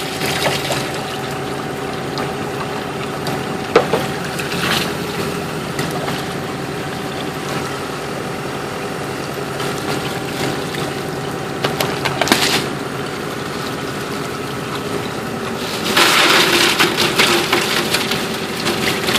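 Excavator's diesel engine idling steadily, with a few short knocks and a louder rush of noise near the end.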